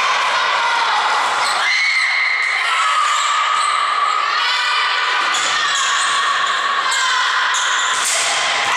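Volleyball rally in a large echoing sports hall: the ball is struck several times over continuous loud, high-pitched shouting and cheering voices.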